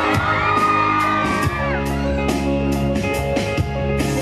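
Instrumental backing track of a pop song playing through a hall PA, with a steady beat. Fans scream over it in long, high cries during the first couple of seconds.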